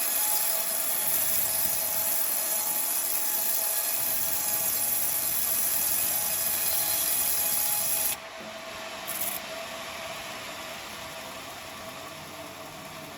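Sawmill bandsaw cutting through coconut timber, a steady hissing rasp over the running machine. About eight seconds in the cutting noise stops abruptly and the saw runs on more quietly.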